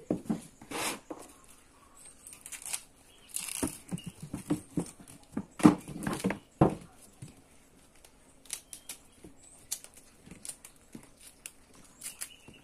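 Hands and a knife stripping the fibrous outer layers from a tuhau (wild ginger) stalk and a torch ginger flower: irregular crackling, tearing and rustling, busiest in the middle few seconds.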